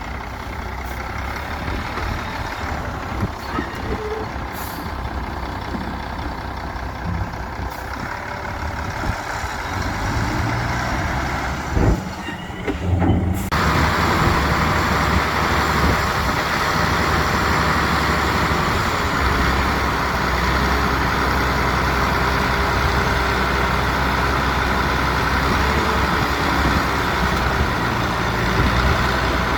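Heavy diesel construction machines running, dump trucks and a bulldozer at work, with a steady low engine rumble. About thirteen seconds in, the sound changes abruptly to a louder, hissier machine noise that continues steadily.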